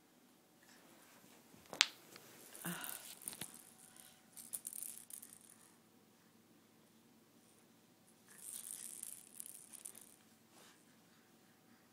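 Baby's plastic toys rattling and clacking as they are grabbed and shaken, in three short bursts, with a sharp click about two seconds in.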